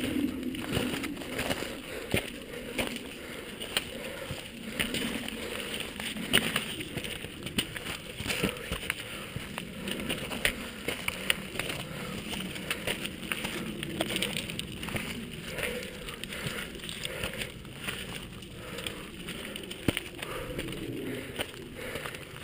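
Footsteps and dog paws on the loose stones of a rocky mountain path: irregular crunches and clicks over a steady rustle.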